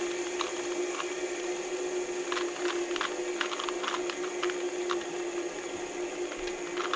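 Rubik's cube being turned fast, plastic layers clicking in quick irregular runs, over a steady hum.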